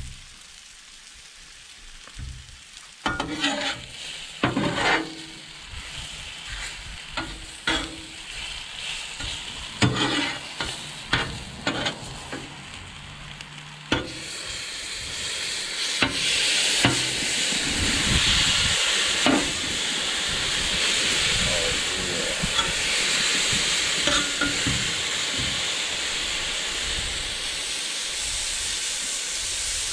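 Steak strips frying on a Blackstone flat-top griddle, a metal spatula scraping and clacking on the steel as the meat is turned. About halfway through the sizzle grows louder and steady.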